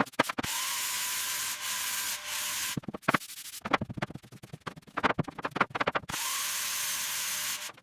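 Walls being sanded: a steady gritty hiss, broken in the middle by a few seconds of quick rasping strokes and clicks, then steady again until just before the end.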